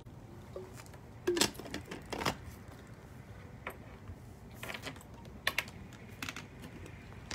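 Irregular light clicks and knocks of hands handling things at a desk, a couple of louder knocks about a second and two seconds in, then scattered single clicks.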